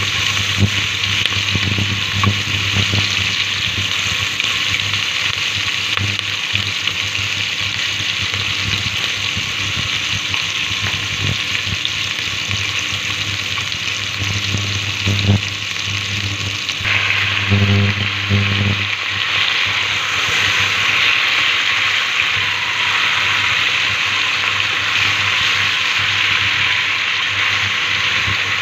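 Onion, ginger and tomato sizzling as they fry in a stainless steel pot, stirred with a silicone spatula. The sizzle grows louder about halfway through, just after a few knocks and clatters.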